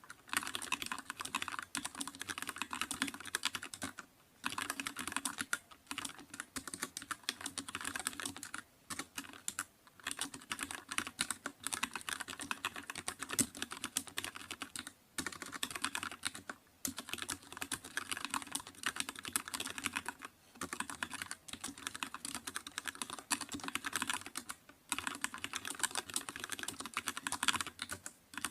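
Computer keyboard typed on quickly and continuously: rapid key clicks in long runs, broken every few seconds by a brief pause.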